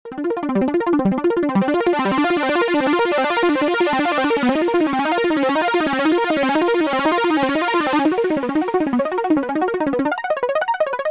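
Omnisphere software synth playing its 'Rapid Fire Moog' patch: a fast Moog-style arpeggio of rapid repeating notes that zigzag up and down in pitch. The sound grows much brighter through the middle as the mod wheel opens the filter cutoff, dulls again, and the notes stop about ten seconds in.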